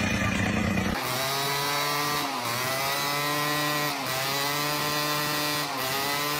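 A small Yamaha motorcycle's engine revved high and held, its pitch dipping briefly and climbing back about every one and a half seconds, four times over. For the first second, the noise of a different machine, cut off abruptly.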